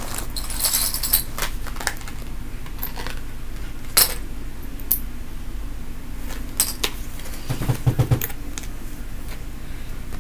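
Metal pin badges clicking and clinking as they are handled and fastened on a bag, in scattered taps with a louder click about four seconds in and a quick cluster near eight seconds, over a low steady hum.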